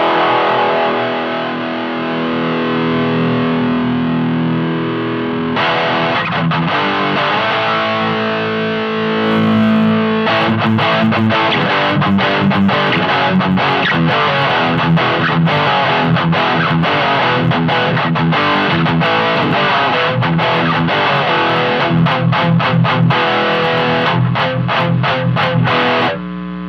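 Distorted electric guitar played through a Hotone Nano Legacy Eagle's Heart mini amp head. It starts with held, sustained chords, shifts to moving notes, and from about ten seconds in turns to fast, rhythmic picked strokes. Near the end the picking stops and a chord rings on.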